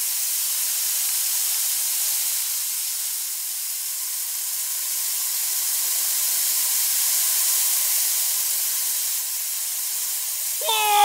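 Steady hiss of sand pouring down in a stream onto toy vehicles.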